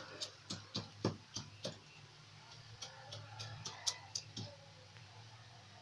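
Whole spices being pounded with a metal pestle in a small steel mortar: a series of light, sharp knocks about three a second, pausing briefly around two seconds in.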